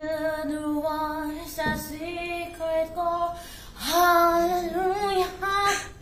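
A high female voice singing slow, drawn-out notes that glide and waver in pitch, with a louder wavering note about four seconds in.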